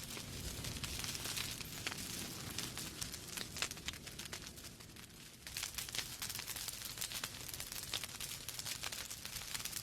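Wood fire crackling in a fireplace: irregular sharp pops and snaps over a steady low rumble of the flames, with a brief lull about five seconds in.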